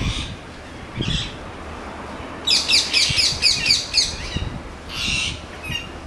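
Rose-ringed parakeets calling: single short calls at the start, a quick run of about eight calls midway, and two more near the end.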